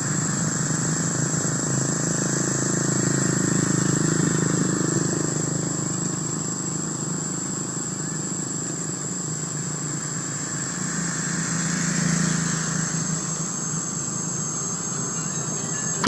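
Engine noise of passing road traffic, swelling twice, about four seconds in and again about twelve seconds in, over a steady high-pitched whine.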